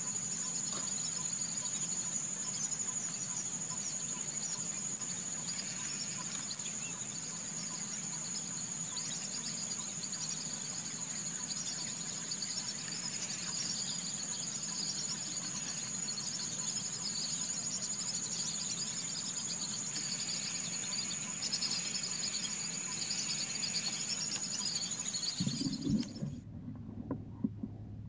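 Steady high-pitched insect chorus with chirping bird calls over it; both cut off abruptly near the end.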